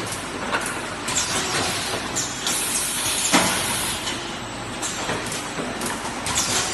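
One-piece carton packaging machine running: a steady mechanical clatter with sharp clacks about once a second, and a stretch of air hiss a few seconds in.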